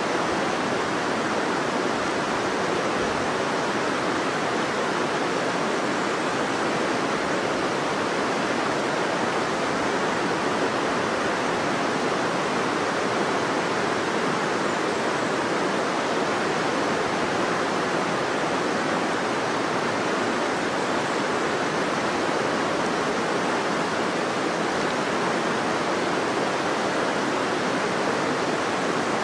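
A river flowing: a steady, even rush of moving water that never lets up.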